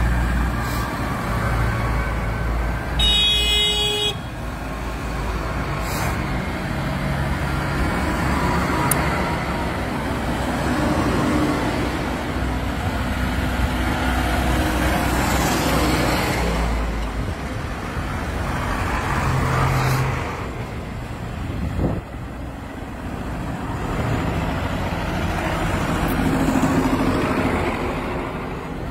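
A column of farm tractors driving past one after another on a wet road, diesel engines running and tyres hissing, the noise swelling and easing as each one passes. A horn toots briefly about three seconds in.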